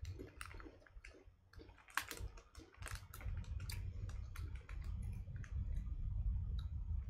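A Walkers Ready Salted potato crisp being chewed: irregular crunches and crackles, with a low rumble underneath from about three seconds in.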